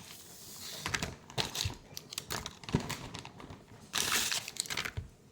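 Handling noise: scattered light clicks and knocks as things are moved about, with a brief louder rustle about four seconds in.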